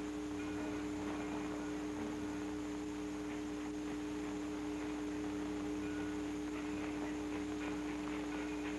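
A steady held tone with a fainter second tone above it, and short high chime-like notes now and then, over the hiss of an old optical film soundtrack.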